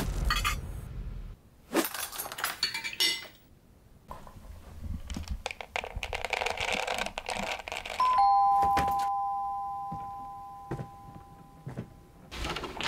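Crockery clinking as a bowl is lifted from a dish rack, then dry cereal rustling into the bowl. About eight seconds in, a two-tone doorbell chime rings, a higher note then a lower one, fading slowly over several seconds.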